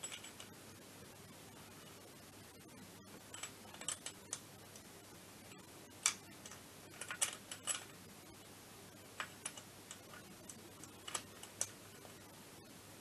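Faint, irregular small metallic clicks and ticks of hex socket (BTR) bolts and a hand tool being fitted into the starter retaining plate on a scooter engine's crankcase, in loose clusters with gaps between.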